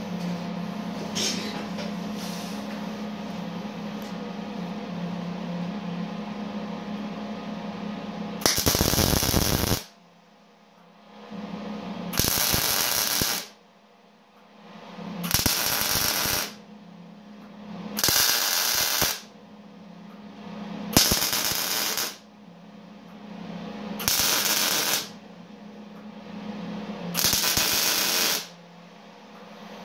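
Eastwood MIG 175 welder laying a row of tack welds: seven short bursts of crackling arc, each about a second long and roughly three seconds apart, starting about eight seconds in. Before the first tack there is only a steady hum.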